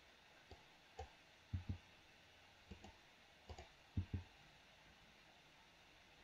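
Computer mouse and keyboard clicks: about five pairs of short, soft clicks spread over the first four seconds, with near silence between them.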